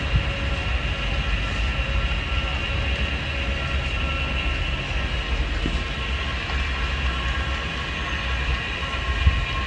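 An 800 W HDPE geomembrane welding machine running steadily as it travels along an overlapped seam of sheet, its small drive motor and gears giving a steady whine over a low rumble.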